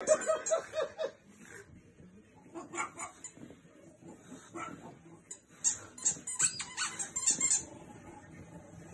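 French bulldog puppy barking with a rubber squeaky toy clamped in its mouth, so each muffled bark squeezes a squeak out of the toy. A quick run of about six squeaks comes in the first second, then more irregular squeaks in bunches through the middle, dying down near the end.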